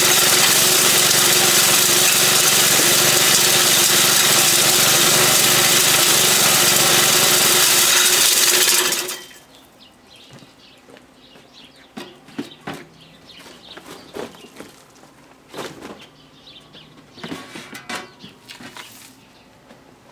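Small 3.5-horsepower engine driving a homemade beer-bottle crusher, running steadily and then cut off abruptly about nine seconds in; after that, scattered light knocks and clinks.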